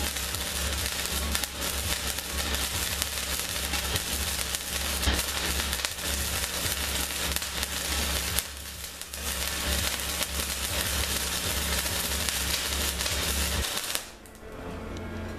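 Electric arc welding on a steel propane tank: the arc crackles and sizzles steadily over a low electrical hum, pauses briefly a little past halfway, then starts again and cuts off about a second before the end.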